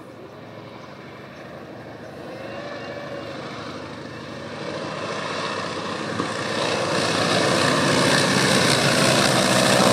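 Junkers Ju 52 trimotor's three radial engines droning under power as it comes in low for a go-around, growing steadily louder as the aircraft approaches and passes close, loudest near the end.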